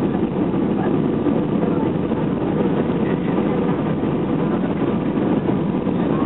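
Steady cabin noise of an Airbus A320-family airliner on approach: jet engines and rushing airflow heard from a window seat inside the cabin, an even low rumble with no change in level.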